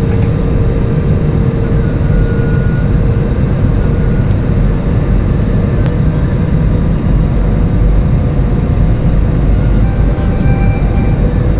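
Steady cabin noise inside an airliner on approach: a dense, even rumble of engines and airflow with a faint constant hum running through it.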